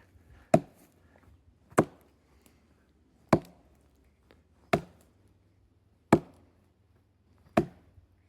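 An axe chopping into a wooden log: six sharp single chops, evenly spaced about a second and a half apart, as the log is cut in half.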